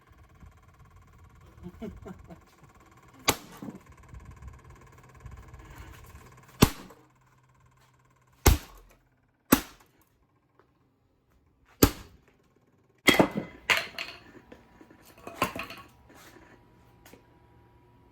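A homemade wooden mallet thrown against a Macintosh 512K computer: about eight separate sharp knocks, some followed by a short clatter, without breaking it.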